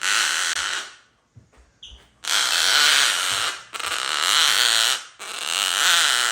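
Gang-gang cockatoo giving harsh, rasping calls, four in a row, each about a second long with short gaps between.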